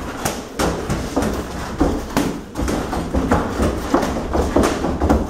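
Boxing sparring heard up close: irregular thuds and slaps of gloved punches and footwork on the ring canvas, several knocks a second apart, over a low steady rumble.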